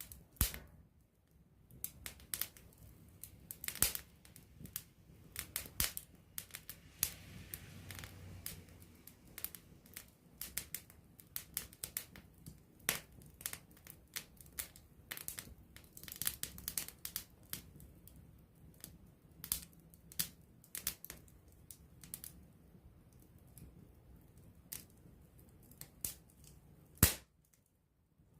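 Wood campfire burning close up, crackling with many irregular sharp pops over a faint low rustle of flame. One louder pop comes near the end.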